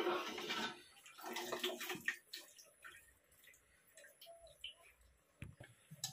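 Spoon scraping and spreading cooked rice in an aluminium pressure cooker: short rustling scrapes in the first two seconds, then a few light clicks and soft knocks of utensils on the pot.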